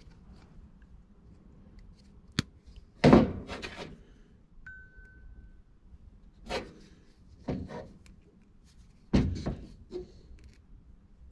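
Handling noises of working wires with pliers: a sharp click, then a loud thunk about three seconds in, followed by several smaller knocks and rustles spread through the rest.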